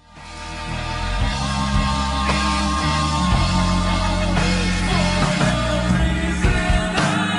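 A song with singing, fading in from silence over the first second.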